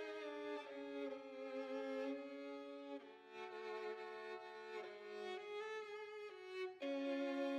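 Solo violin playing held, bowed notes, often two sounding together, moving to a new note every second or so.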